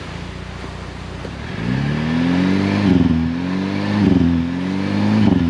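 Jeep Wrangler Rubicon's engine running steadily, then revving up about a second and a half in and held at high revs with two brief dips before easing off near the end. The 4x4 is stuck in soft beach sand and is trying to pull free.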